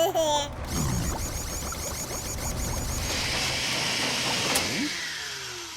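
Cartoon mechanical sound effect of a small motorised device whirring, with fast, even ticking at first, then a rushing whir that winds down with falling tones. A sharp click sounds about four and a half seconds in.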